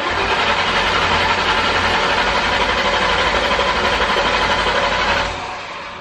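The supercharged 4.6-litre V8 of a 2003–04 Mustang Cobra cranking on the starter for about five seconds without firing, then stopping. It is a no-start caused by no fuel pressure.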